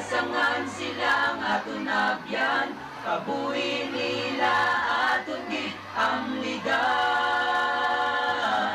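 A group of voices singing together in chorus, the phrase closing on a long held note over the last two seconds.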